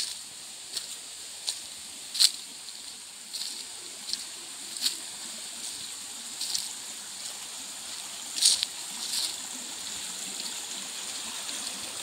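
Footsteps crunching through dry leaf litter, irregular steps roughly once a second, over the steady rush of a shallow stream running over rocks. The crunching stops about three-quarters of the way through, leaving the stream.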